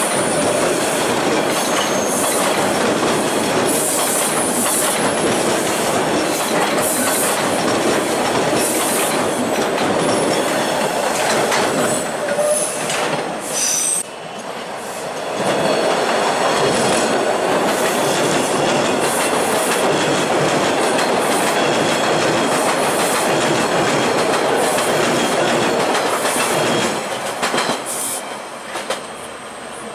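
TTC T-1 subway trains running past on open surface track: a steady rush and rumble of steel wheels on rail, with high-pitched wheel squeal. The noise drops briefly about halfway through, then returns and fades near the end.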